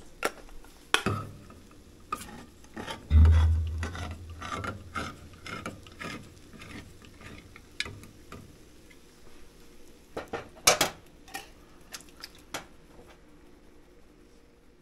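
Irregular clicking and clattering as a can of diced tomatoes is handled and opened, with a heavy thump about three seconds in and a sharp cluster of clicks around ten to eleven seconds in.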